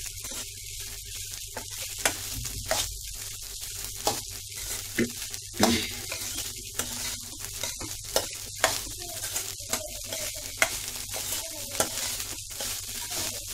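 Steel spoon stirring and scraping cooked rice in a pan over the flame, with a steady sizzle underneath and irregular sharp clicks where the spoon knocks and scrapes against the pan. The rice is being tossed into the oil and chilli-powder tempering so it coats every grain.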